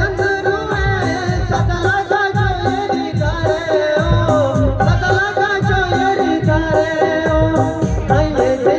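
Folk-style song with singing over a melody line and a steady, heavy drum beat.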